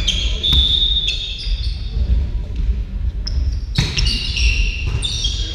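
A volleyball serve in a sports hall. A short high whistle blast sounds about half a second in, then a few ball impacts, the sharpest just before four seconds. After that, sneakers squeak in short bursts on the hall floor, all echoing in the large hall.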